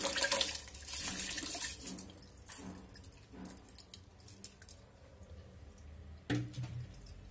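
Raw rice tipped from a steel bowl into a steel pot of water and vegetables, splashing and pattering into the water, loudest in the first two seconds and then trickling faintly. A single sharp knock comes about six seconds in.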